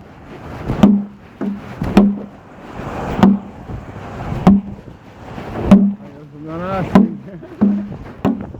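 Muffled knocks and cloth rubbing from a phone microphone carried in a pocket, a knock about every second and a bit in a steady rhythm. A brief wavering pitched sound comes about six and a half seconds in.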